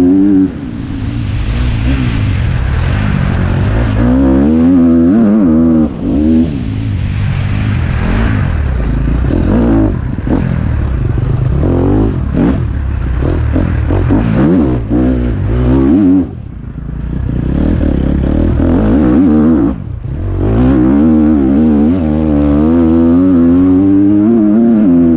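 KTM 250 SX-F's single-cylinder four-stroke engine pulling hard under load, its pitch rising and falling over and over as the rider works the throttle and gears. It briefly drops off a few times when the throttle is closed, then picks up again.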